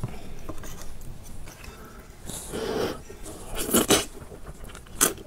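A person eating spicy instant noodles with chopsticks: soft stirring and mouth sounds, then noodles slurped loudly about four seconds in, with another short slurp near the end.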